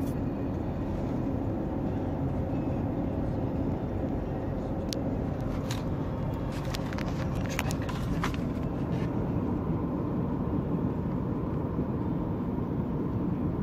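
Steady engine and road noise heard from inside a vehicle's cab while driving on a paved highway, with a few light clicks in the middle.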